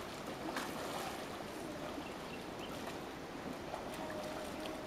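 Steady rush of river water, with light splashing from people kicking and paddling on inflatable rings.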